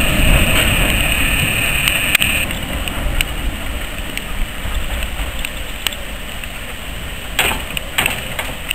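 Saddle tank steam locomotive moving slowly away, hissing steam steadily until the hiss stops about two seconds in, then a low rumble with a few sharp knocks near the end.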